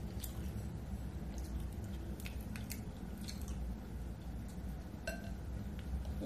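Fingers picking through mussels and shrimp in sauce in a glass bowl: a handful of light, scattered clicks of shell against glass over a steady low hum.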